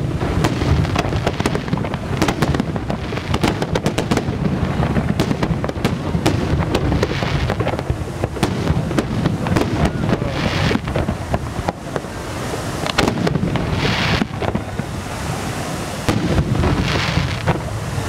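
Fireworks display: aerial shells bursting in a dense run of bangs and crackling over a low rumble, with three louder hissing swells in the second half.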